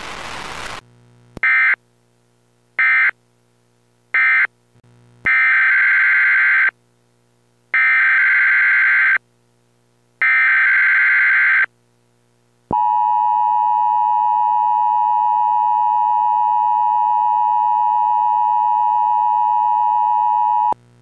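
Emergency Alert System signalling tones: three short bursts of warbling data tones, then three longer bursts of about a second and a half each (the coded data bursts that bracket an alert), then the steady two-tone attention signal for about eight seconds. The attention signal cuts off sharply near the end.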